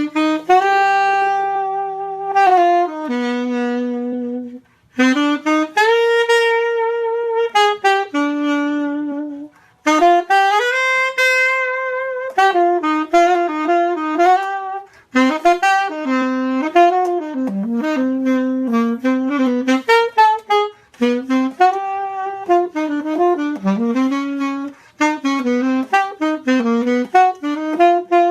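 1935 Selmer Balanced Action alto saxophone played solo: a few long held notes with short breaths between phrases, then a quicker, moving melodic line from about twelve seconds in. It is being test played after a complete mechanical restoration.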